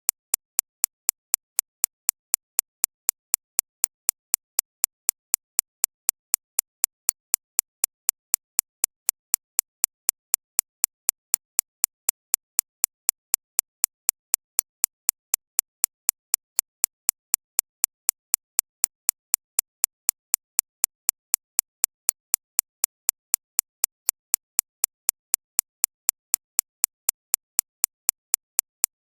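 Sharp synthetic clicks repeating evenly, about three a second, strongest in the high treble. It is a computer-generated recreation of the impact sound of an extracorporeal shockwave therapy (ESWT) machine, tuned to the 6.5–13.5 kHz range as a tinnitus-masking sound.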